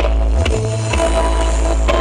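Loud bass-heavy electronic music blasting from a huge stacked truck-mounted sound system, with deep bass notes that change every half second or so and a sharp beat roughly once a second.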